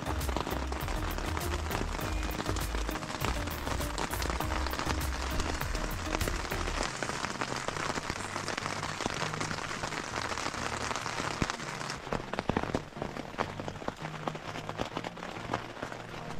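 Heavy rain falling on a nylon backpacking tent, heard from inside as a dense stream of taps on the fabric. Background music with a low bass line plays underneath.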